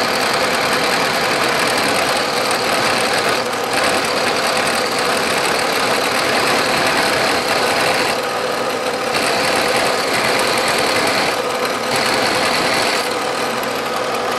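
Vertical milling machine plunge-cutting a hole into a steel vise jaw with a half-inch carbide end mill fed down on the quill. The spindle and cut run steadily under a loud hiss of mist coolant spray, which dips briefly a few times.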